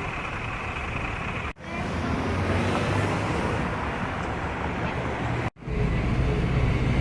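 Street traffic: a steady wash of car and engine noise, broken by two abrupt cuts, about a second and a half in and near the end; after the second cut a low engine hum is louder.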